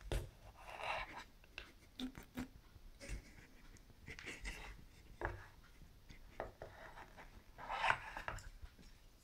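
LionSteel SR1 knife slicing dry salami and a block of hard cheese on a wooden cutting board: short scraping cutting strokes, three of them standing out, among light taps and knocks of the blade and food on the board.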